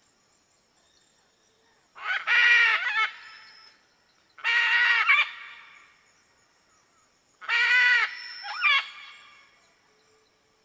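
A macaw squawking three times, each loud call lasting about a second with a short trailing note, the calls a couple of seconds apart.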